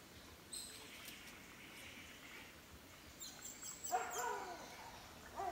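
Faint animal calls over a quiet outdoor background: a few short, high chirps, then about four seconds in a louder pitched cry that falls in pitch.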